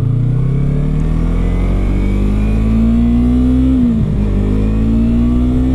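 Yamaha R3's parallel-twin engine accelerating under way, its pitch climbing steadily, dropping briefly at an upshift about four seconds in, then climbing again.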